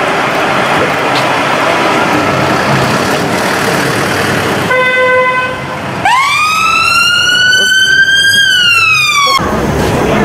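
A car engine runs for the first few seconds. About five seconds in, a steady horn-like tone sounds for about a second. Then a siren wail rises for about two seconds and falls before cutting off abruptly.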